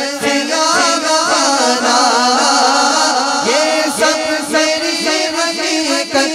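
Several men singing a naat, an Urdu devotional poem, together into microphones, with pitches gliding and overlapping.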